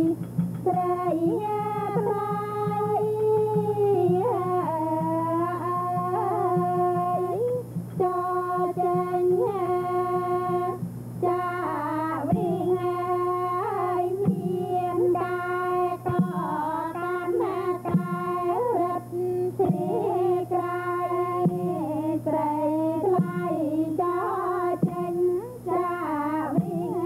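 Khmer classical dance music: a female voice singing a long, ornamented melody with sliding pitch bends over an accompanying ensemble. A steady low hum runs underneath.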